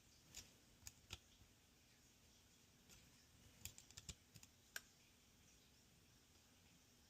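Faint, sharp clicks and taps of multimeter probe tips against the components and solder joints of a circuit board: a few in the first second, then a quick cluster of about six, the last the sharpest.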